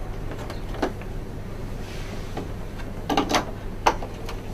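Short plastic clicks and taps as AA batteries are pressed into the battery compartment of a Casio SE-S400 cash register. One click comes about a second in and a quick cluster of clicks about three seconds in.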